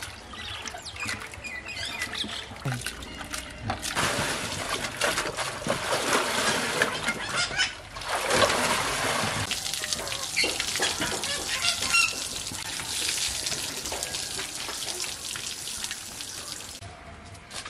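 Wet silk skeins being worked by hand in a large metal pot of dye-coloured water: steady sloshing and splashing. About eight seconds in, a skein is lifted out and water streams off it back into the pot.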